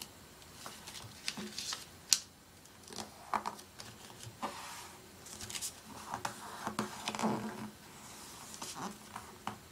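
A sheet of paper being handled, folded and creased by hand: scattered rustles, crinkles and light taps, with one sharp snap of the paper about two seconds in.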